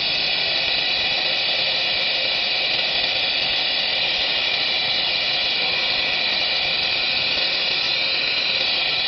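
Automatic PCB board cutting (milling) machine left running, giving a steady, unbroken high whirring hiss.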